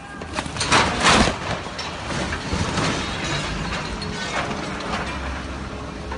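Mechanical clattering, with a cluster of sharp knocks about a second in, then a steady rumble of machinery.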